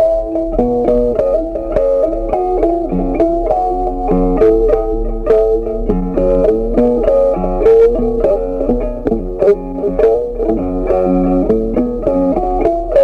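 Background music: a plucked guitar tune with bass.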